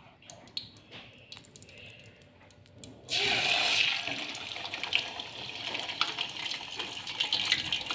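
A few faint clicks of a metal spatula. Then, about three seconds in, pre-simmered chicken hits hot oil in a wok and the oil bursts into a loud deep-frying sizzle, strongest at first and settling into a steady sizzle.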